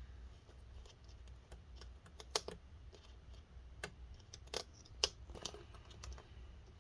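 Scattered light clicks and taps from fingers handling small laptop parts, about five sharper ones in the middle of the stretch among fainter ticks.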